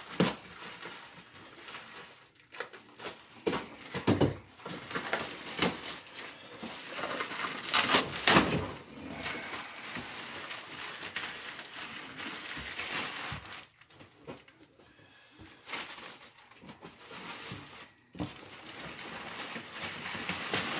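Plastic wrapping being cut, torn and pulled off a cardboard box, irregular crinkling and rustling with louder tearing bursts, the loudest about eight seconds in; it goes quieter for a few seconds near the end before the rustling picks up again.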